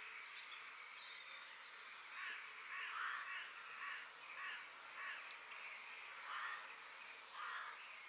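Forest bird ambience: a crow cawing about six or seven times from about two seconds in, over a steady forest background hiss with faint high chirps of small birds.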